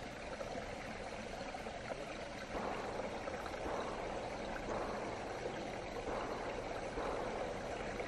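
Small woodland stream running, a steady rush of water that grows louder about two and a half seconds in and then swells about once a second.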